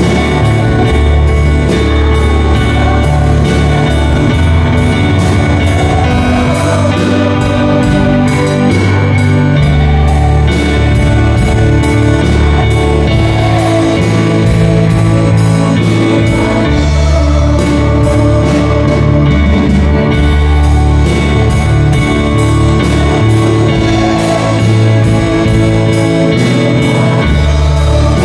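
Live worship band playing: electronic keyboard over drums with a steady beat and a strong bass line.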